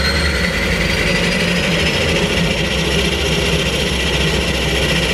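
Turboprop aircraft engine running steadily: a low drone under a high, even whine.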